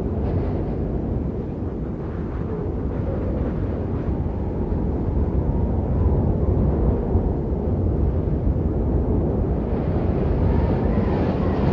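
Blizzard wind blowing hard as a steady low rush, with faint howling tones about halfway through and again near the end, where the hiss also grows brighter.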